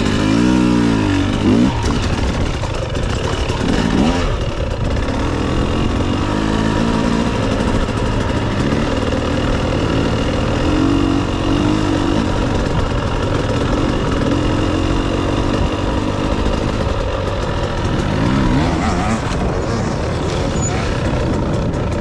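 Dirt bike engines running, with the revs rising and falling several times: most clearly in the first two seconds, again through the middle and near the end, over a steady low engine drone.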